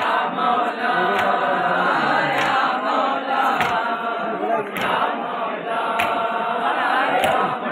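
A group of men chanting a Muharram mourning lament (noha) together, with sharp unison strikes about every 1.2 seconds that keep the beat, typical of matam chest-beating.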